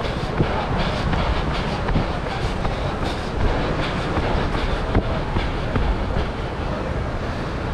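Steady low rumble of wind on a running GoPro's microphone, with scattered sharp knocks and thumps.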